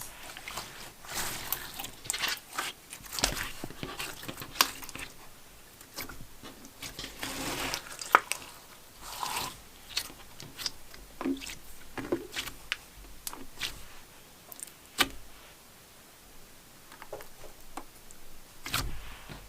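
Slime being squeezed and pressed by hand: irregular wet squishes with sharp little clicks and pops from trapped air. The sounds come thick and fast at first, then thin out to a few scattered clicks, with one louder squelch near the end.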